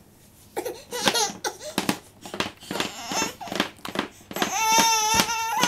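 A 24-week-old baby fussing in short, broken whimpers mixed with a few sharp knocks, then, about four and a half seconds in, breaking into one long, wavering cry.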